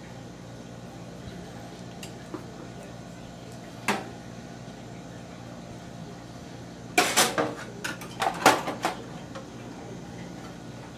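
Workbench handling noise: a single sharp knock about four seconds in, then a quick cluster of clacks and rattles, like hard tools and metal parts being set down and moved, over a steady low hum.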